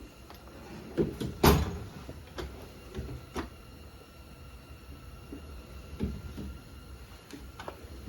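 Drawers of a Harbor Freight Yukon 46-inch metal tool chest being slid open and shut, with a string of knocks and clunks of the drawers and the tools inside. The loudest clunk comes about one and a half seconds in, and a few more follow.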